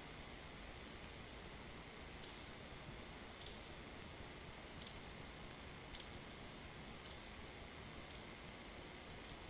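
A cricket chirping: short, high single chirps about once a second, starting about two seconds in, over a steady background hiss.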